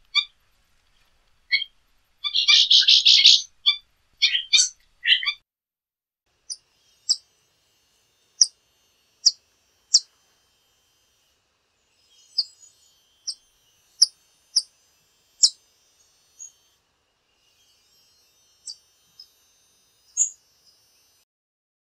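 Blue-naped chlorophonia calling: short notes and a dense burst of chatter. After about six seconds this gives way to a rufous-crested coquette's thin, very high single chips, spaced a second or more apart.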